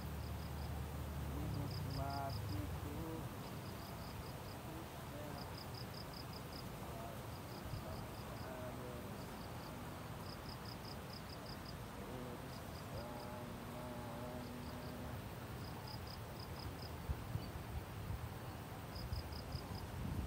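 A chirping insect: short runs of three to six quick, high-pitched pulses, repeated every second or two over a steady low outdoor background.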